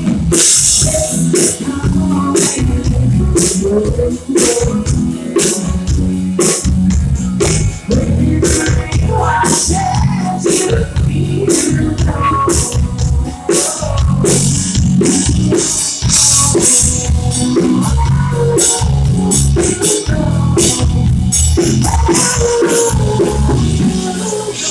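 Live rock band playing: a woman singing over electric guitar, bass guitar and a drum kit keeping a steady beat.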